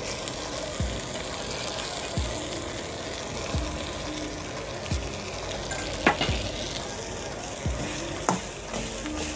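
Noodles stir-fried in a wok over a gas burner: steady sizzling, with metal ladles knocking and scraping against the wok about every one and a half seconds. About six seconds in comes one sharper metallic clank.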